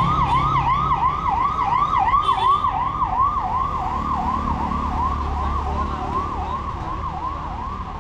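Electronic siren sounding a fast, even yelp, about three sweeps a second, over a low traffic rumble.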